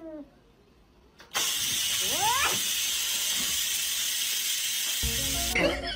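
A cat's short rising meow over a steady hiss. The hiss starts abruptly about a second and a half in and cuts off shortly before the end.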